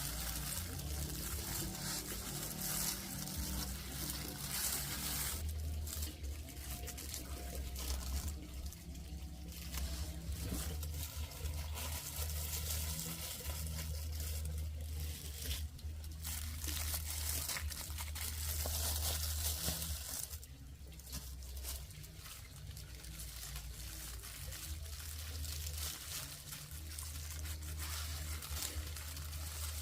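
Water trickling over a steady low rumble.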